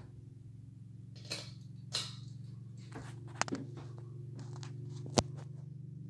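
Craftmade Copeland ceiling fan running, its motor giving a steady low hum that slowly grows louder. A few scattered clicks and knocks sound over it, with a sharp click about five seconds in.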